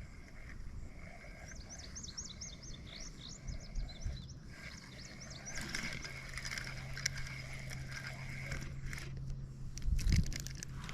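A songbird singing a quick run of short, high chirping notes, twice. A faint steady low hum sounds underneath.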